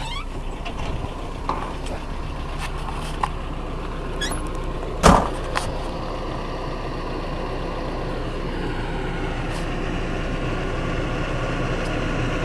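Car running, with steady engine and road noise heard from inside the vehicle. There are a few light clicks, and one sharp knock about five seconds in. The noise grows slightly louder toward the end.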